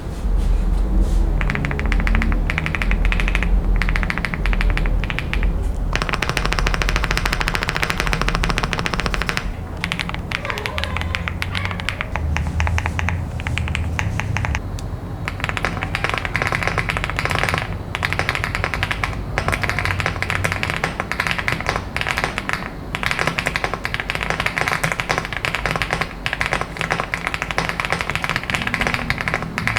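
Fast typing on an Elecfox Inky75, a gasket-mounted 75% mechanical keyboard with an aluminium top case: dense runs of key clicks with short pauses between them, over a steady low tone.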